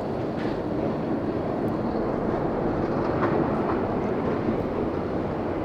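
A steady rushing noise, strongest in the low-middle range, with no clear rhythm or sharp strikes.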